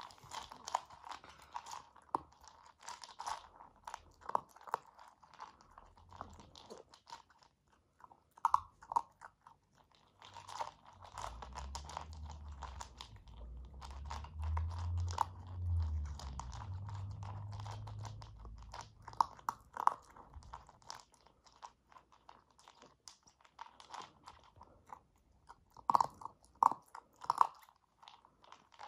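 Siberian husky puppy eating dry kibble from a plastic bowl: steady crunching and chewing with many sharp clicks, loudest in bursts near the middle and near the end. A low rumble runs underneath for about ten seconds in the middle.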